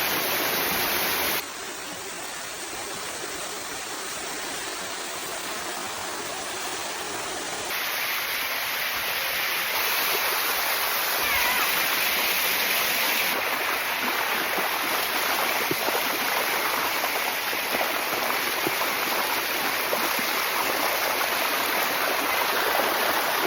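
Water rushing steadily over the rock cascade of the Bua Tong Sticky Waterfall. The level jumps abruptly a few times, growing louder about eight seconds in.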